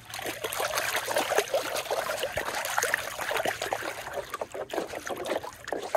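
Water splashing and trickling as hands rinse a plastic cutting board in shallow river water: a continuous run of small, close splashes.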